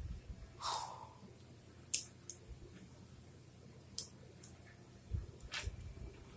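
Lego plastic pieces being handled and snapped together: a few sharp separate clicks, the loudest about two seconds in, with soft knocks of handling near the end.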